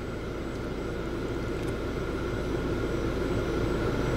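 Steady mechanical drone with a low hum and a faint held whine, slowly growing louder.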